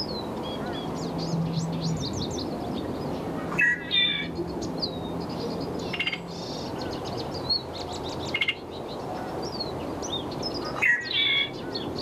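Red-winged blackbird singing, its song phrase repeated four times a couple of seconds apart, over many short high chirps from other birds.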